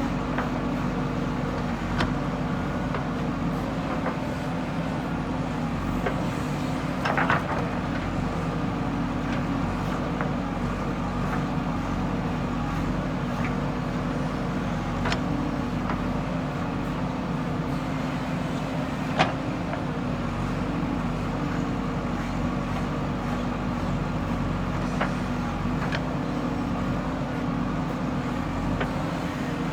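JCB 3DX backhoe loader's diesel engine running steadily under work, with a few sharp knocks and clanks, a short cluster about seven seconds in and the loudest about nineteen seconds in.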